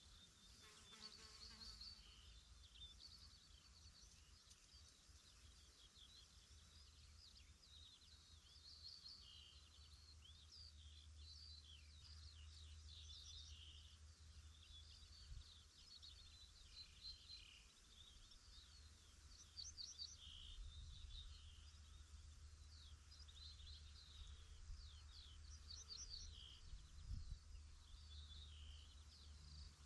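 Songbirds chirping, a stream of short, high calls that sweep up and down in pitch, overlapping throughout, over a faint steady low rumble.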